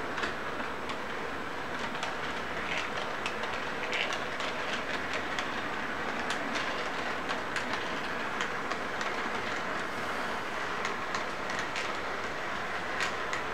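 Model train rolling past on its track, pulling intermodal cars: a steady rumble of wheels with many irregular clicks over the rail joints.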